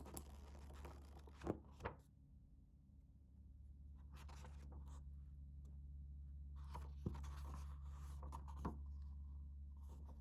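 Paper and packaging being handled and rustled in soft, scraping stretches, with a few light knocks as items are set down, over a steady low hum.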